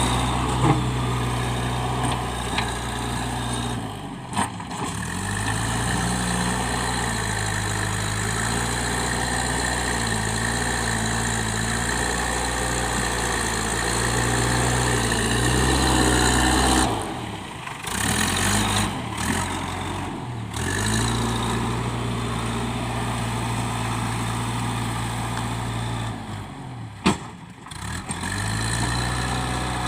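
Diesel engine of a JCB 3DX backhoe loader running steadily at work, with its pitch shifting a little and the sound dropping off briefly a few times. A sharp click comes near the end.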